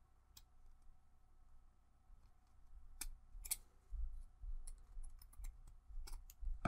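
Scissors snipping off the excess paper flush along the edge of a balsa wood block. Quiet, scattered snips come a few at a time early on, then quicker and more often in the second half.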